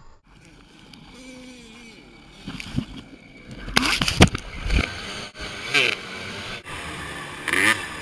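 Two-stroke 250cc motocross bike engine being ridden, its revs rising and falling. It is fainter for the first few seconds, then much louder from about four seconds in, with sharp rev peaks.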